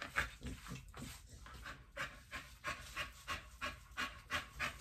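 A dog panting quickly with its mouth open, about three short breaths a second.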